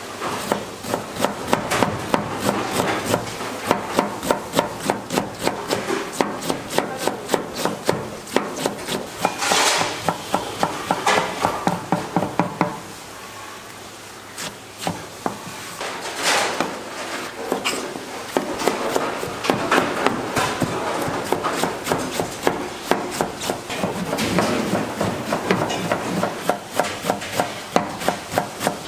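Chef's knife chopping shredded cabbage on a plastic cutting board: a rapid, steady run of blade strokes knocking on the board, with a short pause about halfway through before the chopping resumes.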